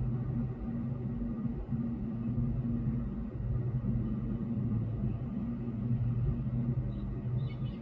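A steady low hum with a low rumble under it, holding one even pitch, and a few faint ticks near the end.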